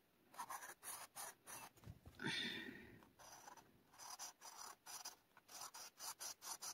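Black marker tip scratching across a plastic stencil onto paper in quick short strokes, a few a second, with one louder squeak rising in pitch a little over two seconds in.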